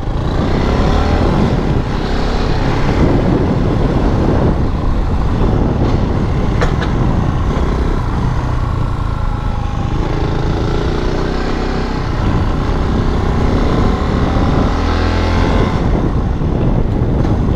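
Yamaha WR250X single-cylinder engine running while the motorcycle is ridden, its pitch rising and falling with the throttle.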